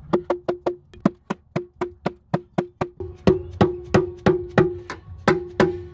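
Hammer rapping over and over on a screwdriver wedged into the seam of a Jeep Cherokee XJ's oil pan, to break the pan loose from its gasket sealant. The knocks come about three to four a second, each leaving a short ringing tone, and they grow harder about three seconds in.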